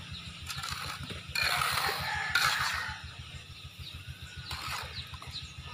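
Steel hand trowel scraping and smoothing wet sand-and-cement mortar in a few rough strokes, the longest about a second and a half in. A low, steady throbbing hum runs underneath.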